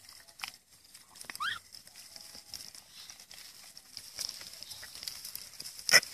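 Hands digging in wet mud among dry rice stubble, with light rustles and small clicks. A short rising squeak about a second and a half in, and a sharp snap near the end that is the loudest sound.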